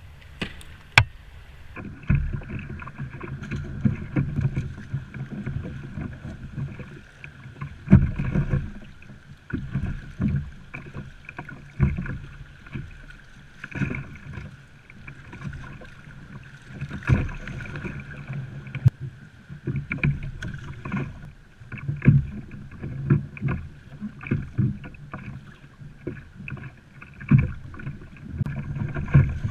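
Choppy water slapping and knocking against a plastic sit-on-top fishing kayak's hull, in irregular thumps over a steady rush of water and wind.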